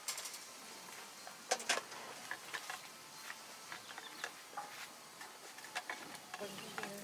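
Scattered light clicks and taps, two louder ones about a second and a half in, with a few short chirps near the end.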